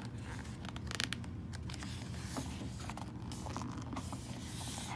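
Pages of a picture book being turned and smoothed flat by hand: paper rustling and sliding, with a few short clicks and taps about a second in.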